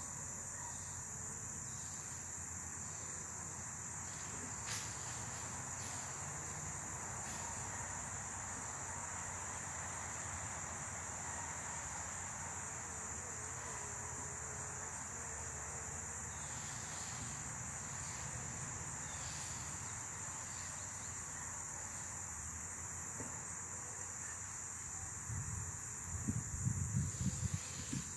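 Steady high-pitched chirring of crickets over a low hum. A few low thumps come near the end.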